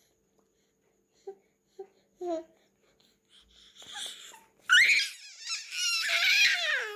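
A baby's voice: three short low coos, a breathy rush, then from about five seconds in a loud, high-pitched squealing cry that falls in pitch near the end.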